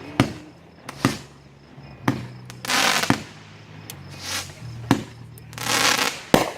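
Aerial fireworks bursting overhead: a series of sharp bangs about a second apart, with two longer crackling, hissing bursts of crackle-effect shells, around three seconds in and near the end.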